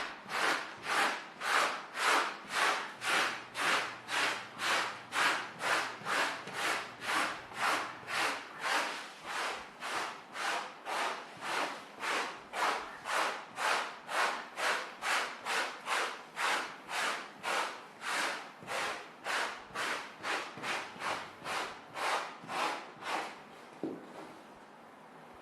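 Mini pet hair remover scraped back and forth in quick, even strokes, about two a second, stopping near the end.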